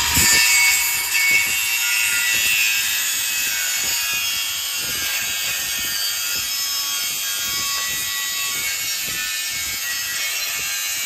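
Angle grinder cutting through a car's exhaust pipe: a continuous, loud, high grinding whine that holds steady throughout.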